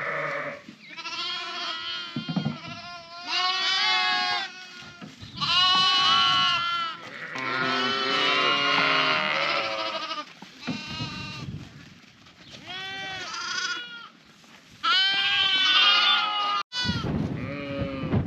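A flock of Dorset ewes and young lambs bleating, call after call, often overlapping, at several different pitches. Each lamb has its own voice, and ewes and lambs call to find each other.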